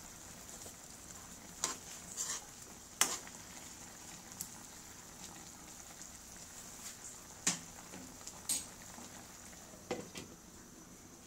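Chicken adobo simmering and sizzling in its sauce in a metal wok, a steady hiss, with a few sharp clinks of a metal spoon against the pan. Near the end a glass lid is set down on the wok with a knock.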